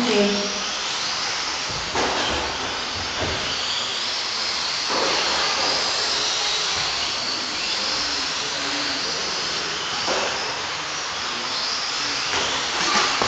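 Several Tamiya TT-01 electric RC touring cars racing, their motors whining high and rising and falling in pitch as they speed up and slow down. A few short knocks sound through the whine.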